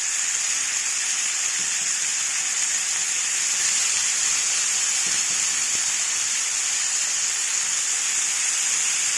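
Shish tawook skewers of marinated chicken and vegetables sizzling steadily on a hot oiled grill pan over a high gas flame.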